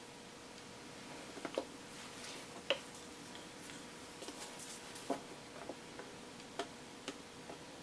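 A few scattered, irregular light clicks and taps from handling small plastic paint cups, over a faint steady hum.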